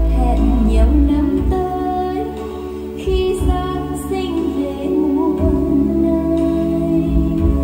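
A song with a woman singing over a strong bass line, played loud through active PA loudspeakers and a subwoofer in a room; the deepest bass drops back for about two seconds midway.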